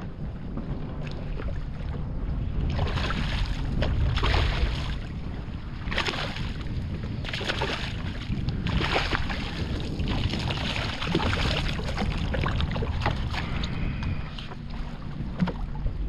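Hooked fish splashing and thrashing at the surface beside the boat, in repeated surges of splashing over several seconds. Wind rumbles steadily on the microphone underneath.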